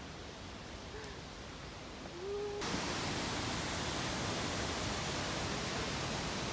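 Quiet outdoor background with a few faint short chirp-like glides, then an abrupt switch about two and a half seconds in to a louder, steady rushing noise.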